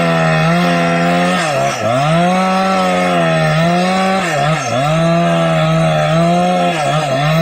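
Husqvarna 365 Special two-stroke chainsaw ripping lengthwise through a teak log at high revs. The engine speed dips briefly three times, about two, four and a half and seven seconds in, under the load of the cut, and picks up again each time.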